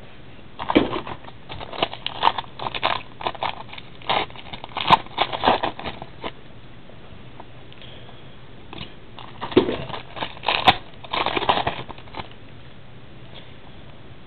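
Trading card packs and cards being handled: crinkling wrappers and rustling, flicking cards in two spells of activity with a pause between them.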